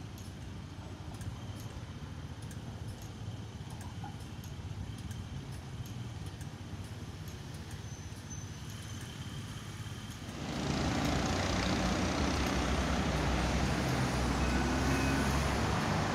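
Road traffic ambience: a steady low rumble of passing vehicles. About ten seconds in it suddenly becomes louder, busy intersection traffic, with a few short high beeps near the end.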